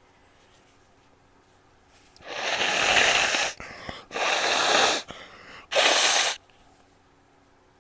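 A person blowing their nose three times, starting about two seconds in. The first blow builds up and lasts over a second, and the last is the shortest.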